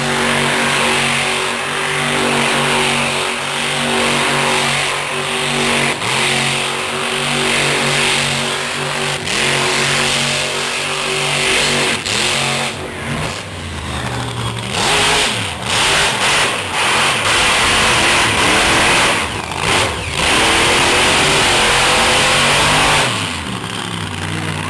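Monster truck engine running loud and steady, then revving up and down repeatedly in the second half, its pitch rising and falling as the truck spins.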